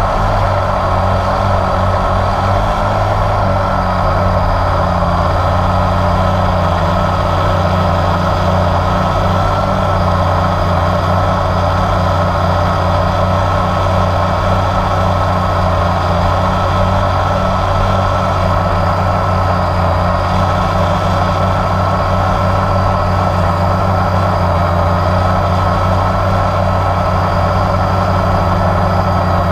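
Blade 350 QX quadcopter's four motors and propellers running with a steady, unbroken buzz, picked up close by the camera mounted on the drone itself.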